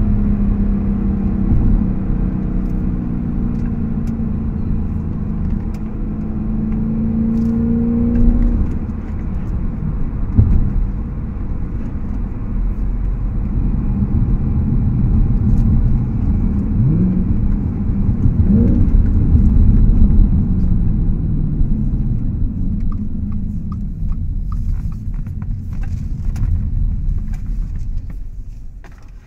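Audi S5 with an AWE Tuning aftermarket exhaust, heard from inside the cabin while driving. The engine pulls with a rising pitch, drops sharply at a gear change about eight seconds in, pulls up again near the middle, then eases off and slows, growing quieter near the end.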